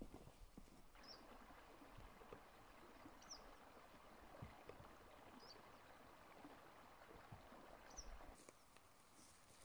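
A few footfalls on wooden duckboards, then the faint, steady trickle of a small bog stream, with a bird chirping briefly four times.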